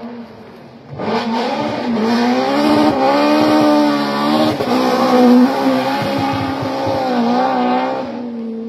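Fiat 131 Abarth rally car's four-cylinder engine revving hard through the gears as the car approaches and passes. From about a second in it is loud, and its pitch climbs and drops several times at the gear changes.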